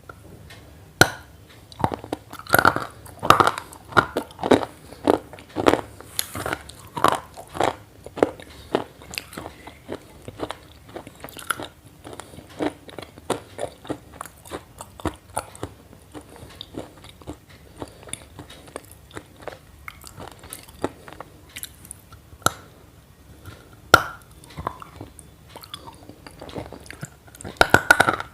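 Close-up crunching and chewing: many irregular sharp crunches, in quick clusters at first, then sparser, with a loud cluster near the end.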